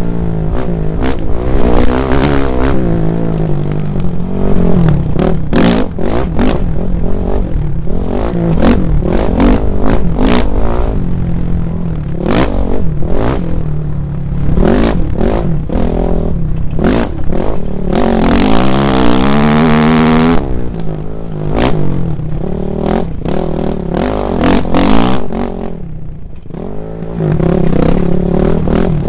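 Off-road motorcycle engine revving up and down under hard riding over rough dirt, with clattering knocks from the bumpy ground. The throttle eases off briefly near the end, then picks up again.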